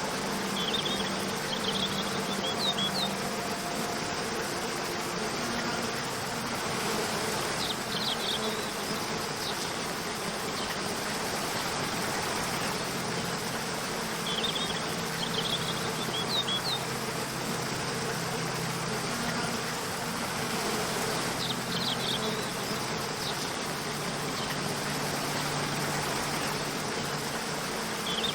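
Waterfall rushing steadily, with soft sustained low tones of background music beneath it. Short clusters of high bird chirps come back about every six to seven seconds.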